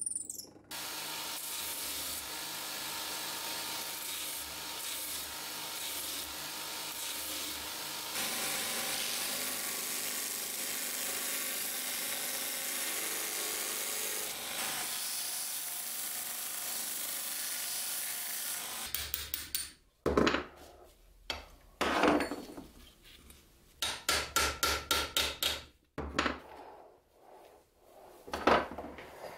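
Belt grinder running as the knife's wooden handle and steel are pressed against the belt: a steady grinding hiss for most of the time. It stops about two-thirds of the way in, and is followed by a string of short scraping and knocking strokes from hand work at the bench, including a quick run of about eight strokes.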